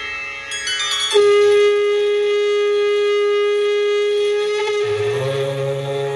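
Conch shell (shankh) blown in one long, loud, steady note that rises into pitch about a second in and is held for about three and a half seconds. Near the end a low drone with other notes begins as the Shiva hymn starts.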